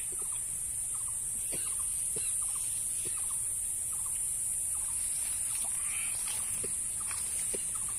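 Outdoor orchard ambience: a steady high-pitched insect drone, with scattered short bird or fowl calls and small clicks.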